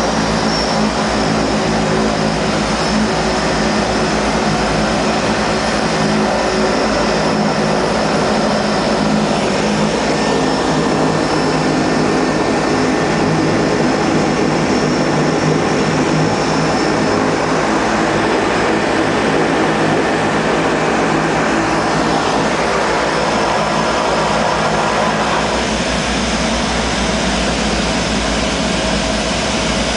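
Seaplane's turboprop engine and propeller running steadily, heard from inside the cabin while the floatplane is on the water. A thin high whine fades out about halfway through.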